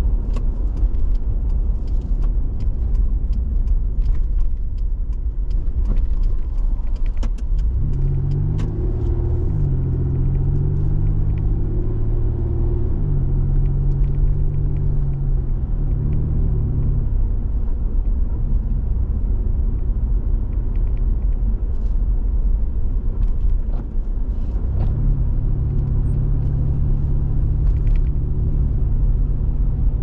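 Car driving on the road, heard from the car itself: a steady low rumble of tyres and engine. An engine hum comes in about a quarter of the way through and steps up and down in pitch for several seconds, then fades, and returns as a steady hum near the end.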